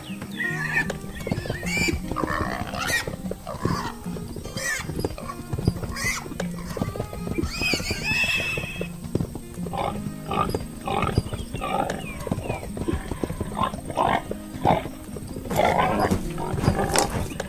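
Repeated animal calls, short and gliding in pitch, over steady background music.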